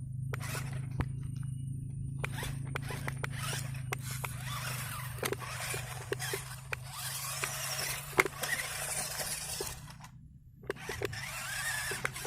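RC rock crawler's small electric motor running with a steady hum, with scattered clicks and scraping as it crawls over dirt and rock; the scraping grows about halfway through and briefly drops out near the end.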